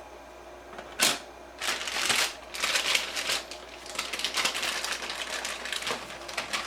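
Sharp plastic click, then a run of irregular clicking and rattling as memory modules are unlatched and pulled from the DIMM slots of an HP ProLiant DL360p Gen8 server.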